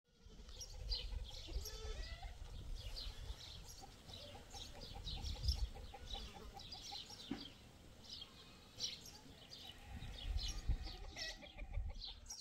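Birds chirping and calling outdoors, with many short high chirps and, midway, one call repeating a quick note for about two seconds, over a low rumble.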